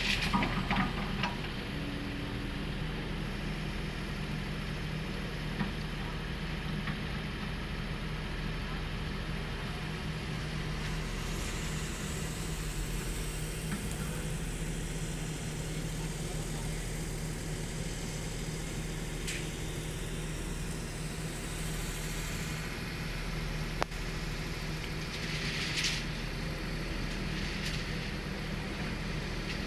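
Hydraulic excavator's diesel engine running steadily, with a few short knocks along the way.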